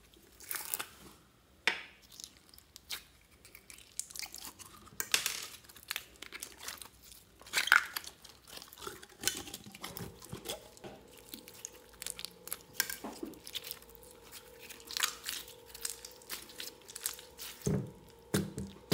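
A plastic tube of store-bought slime being handled and opened: irregular clicks and crackles from the plastic cap and container, then slime squelching as it is poured out of the tube onto a tray of slime and pressed down by hand, with two soft thuds near the end.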